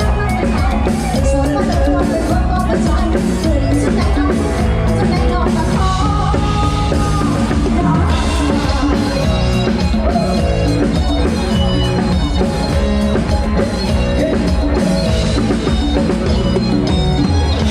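Lam sing band playing an instrumental passage with no singing: a drum kit keeps a steady driving beat over a deep bass line, under held melodic notes.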